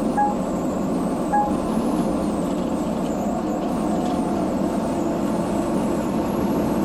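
Steady road and engine noise inside a moving semi-truck's cab. Two short electronic beeps come about a second apart near the start.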